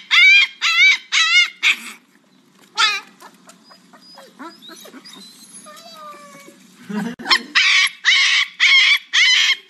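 Husky puppy yipping in short, high-pitched calls that waver in pitch: a quick run of four, then quieter whimpering, then another run of about six near the end.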